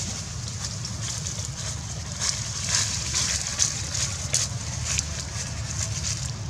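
Leaves and twigs rustling and crackling as baby macaques climb and swing in the branches, with a run of crisp crackles in the middle, over a steady low rumble.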